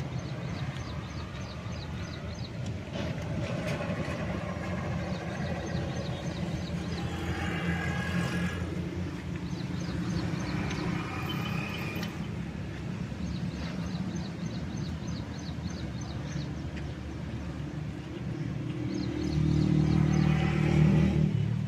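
Outdoor traffic noise: a steady low rumble of vehicles, with fainter calls or voices rising out of it now and then and a little louder near the end.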